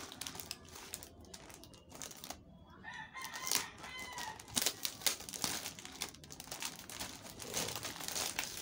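Clear plastic wrap crinkling and crackling as it is handled and slit open with a utility cutter. A rooster crows in the background about three seconds in.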